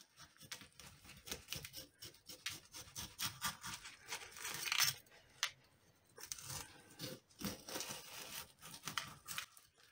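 Knife slitting open the belly of a half-thawed trout: an uneven run of short, faint scratchy cutting strokes as the blade works through the skin.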